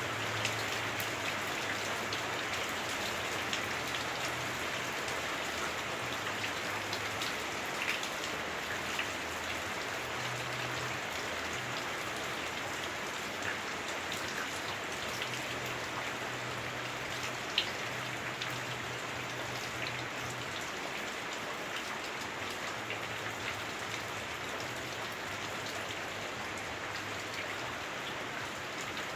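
Heavy rain on a house roof, heard from indoors: a steady hiss with scattered sharper drop ticks, a bit clunky through the dense roof.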